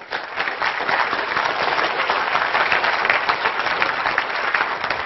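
Audience applauding: many hands clapping in a dense, steady patter that starts just as the talk ends.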